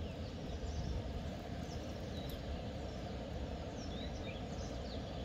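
Faint, scattered bird chirps over a steady low background rumble.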